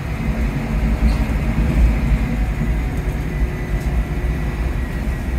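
Scania K230UB OmniLink bus's five-cylinder diesel engine and ZF Ecomat automatic driveline running under way, heard from the rear of the passenger saloon: a steady, loud low rumble with a thin high whine that slowly drops in pitch.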